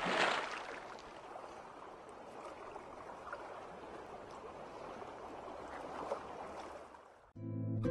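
Underwater water-and-bubbles sound effect: a splash rush fading at the start into a steady bubbling water hiss, which cuts off suddenly about seven seconds in as plucked guitar music begins.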